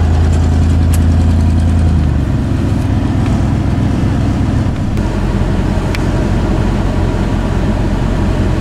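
Vehicle engine running, heard from inside the cab, with a steady low drone for about the first two seconds that gives way to an even low rumble.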